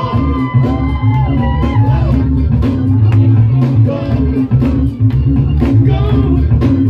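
Loud music from a DJ's sound system: a heavy bass beat with regular drum hits and a singing voice over the top.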